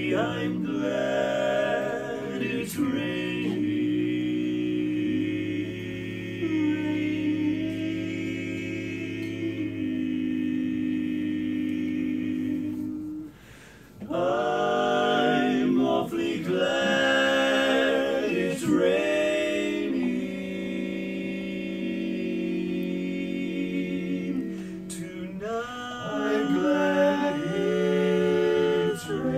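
Male barbershop quartet singing a cappella in four-part close harmony, holding long sustained chords. The singing breaks off briefly about halfway through, then resumes.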